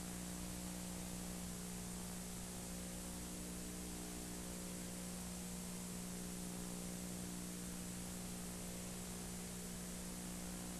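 Steady hiss with a low electrical hum and nothing else: the background noise of the recording itself, with no program sound.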